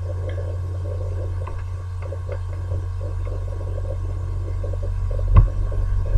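Steady low electrical hum, like mains hum picked up by the recording, with a few faint ticks and one sharp click near the end, as a mouse button is clicked.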